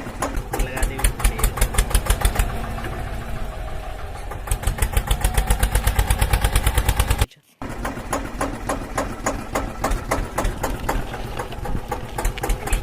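Small tractor engine chugging with a rapid, even beat, louder in stretches; it cuts out for a moment about seven seconds in and then carries on.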